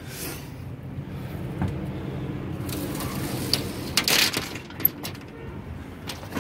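Metal knocks and rattles from a diamond-plate truck toolbox and its gear being handled, with a brief scraping rush about four seconds in. A steady low engine hum runs underneath.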